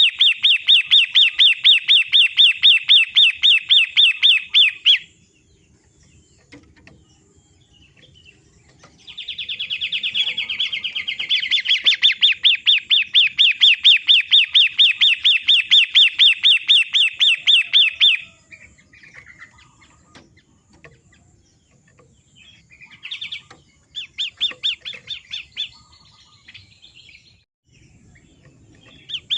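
Long-tailed shrike calling in long, fast runs of rapidly repeated sharp notes, with a pause of about four seconds after the first run, then shorter bursts near the end.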